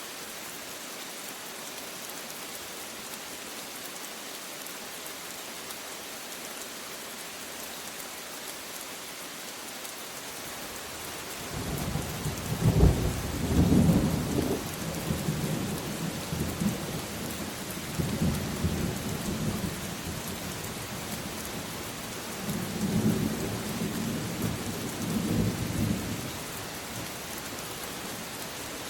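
Steady rain falling, and about ten seconds in thunder starts rumbling. The thunder is loudest in its first few seconds, then rolls on in several swells and dies away near the end.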